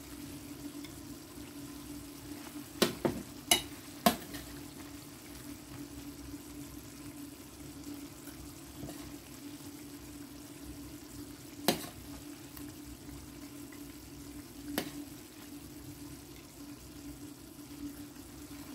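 Curry chicken simmering and bubbling in an electric pot over a steady hum, while a metal spoon stirs it. The spoon knocks against the pot three times about three to four seconds in, and once more each near the twelve- and fifteen-second marks.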